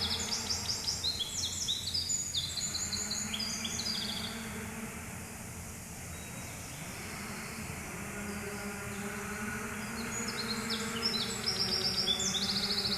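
Many small birds chirping in dense, overlapping bursts of high, quick calls. The chirping is loudest in the first few seconds and again near the end, with a lull in the middle, over a steady low hum.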